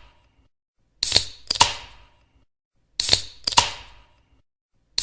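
Aluminium soda can being opened, twice, about two seconds apart: each time a sharp crack with a brief hiss, then a second crisp click a half-second later.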